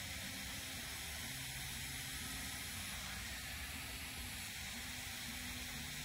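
Steady hiss of a fine water mist spraying.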